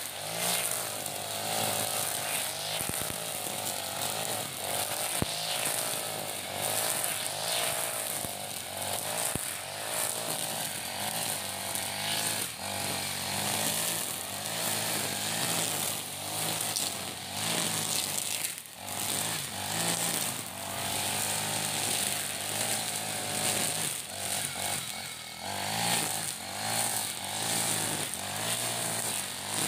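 iPower EH40 40cc four-stroke backpack brush cutter running at cutting speed, its nylon trimmer line whipping through grass and weeds. The engine pitch keeps wavering up and down as the line meets the growth.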